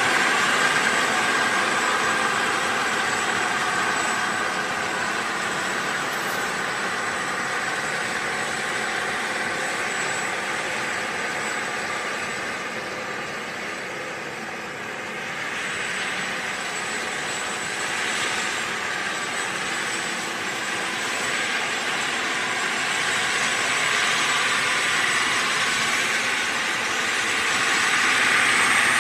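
John Deere 9630 four-wheel-drive tractor's 13.5-litre six-cylinder diesel running steadily under load as it pulls a loaded scraper pan, with a thin high whine over the engine note. The sound eases off about halfway through and swells again near the end.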